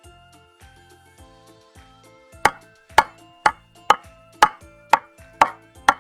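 A series of eight sharp knocks or chops, about two a second, starting a little over two seconds in, over light piano background music.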